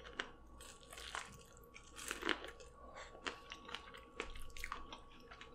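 Close-up chewing and crunching of corn kernels bitten off a sauce-covered cob, with many small wet mouth clicks and crackles.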